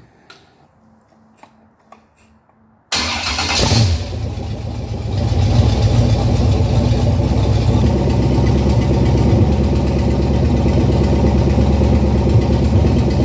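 Chevrolet 350 small-block V8 with a Delco points distributor started about three seconds in, catching at once, then running steadily, a little louder from about two seconds later. The points are freshly gapped to about 20 thou, roughly 30 degrees of dwell.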